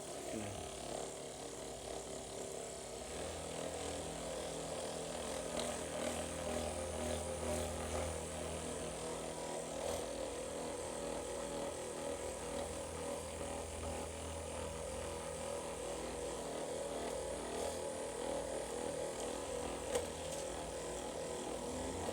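Electric massager's motor running steadily with an even hum, used to loosen the patient's muscles; a single sharp click near the end.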